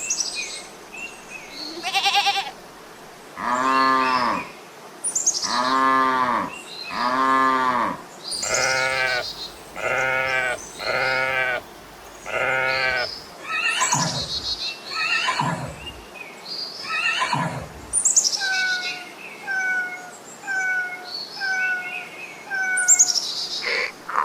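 A series of farm animal calls, one after another: long, arching calls repeated about every second and a half through the first half, a few falling calls, then short high calls repeated about once a second near the end.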